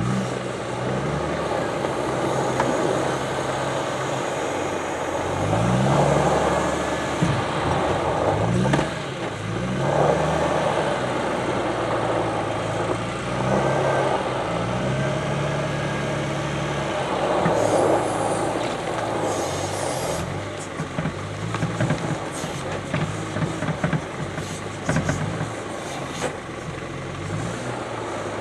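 Volvo L70G wheel loader's diesel engine working through a loading cycle, revving up and down again and again as it lifts, backs away and drives back to the truck, with a brief hiss about two-thirds of the way through.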